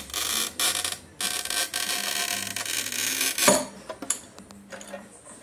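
QEP manual tile cutter's scoring wheel scratching across a piece of mirror glass, a rough hiss in two pushes lasting about three seconds, then one sharp crack about three and a half seconds in as the glass snaps along the score under the cutter's breaker.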